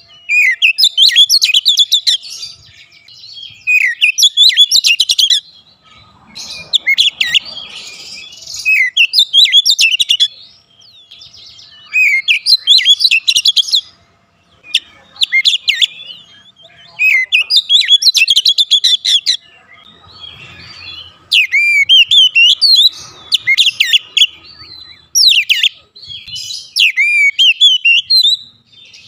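Caged oriental magpie-robin singing: a run of quick, varied whistled phrases, each one to three seconds long, with short pauses between them.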